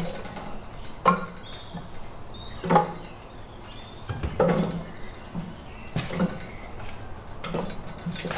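A series of sharp knocks and clunks, about eight of them a second or so apart, some with a brief ring, from things being handled at a barrel smoker.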